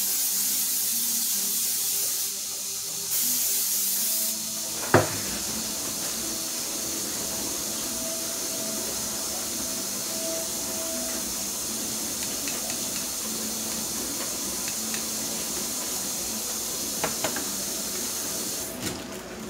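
Aerosol cooking spray hissing onto a frying pan in two bursts, the first about two seconds long and the second about one. A single knock follows, then a steady hiss with a few faint clicks.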